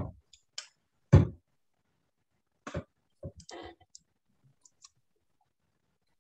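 Small hard objects knocking and clicking on a tabletop as painting tools are put down and picked up: two loud knocks about a second apart, then lighter clicks and a short rattle.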